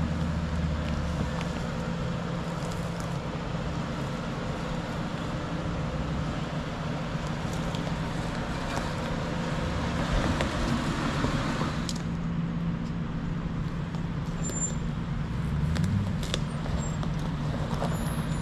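Ford Crown Victoria sedans crawling up a rocky dirt track: V8 engines running at low revs, with tyres crunching over loose stones. Near the end the revs rise briefly.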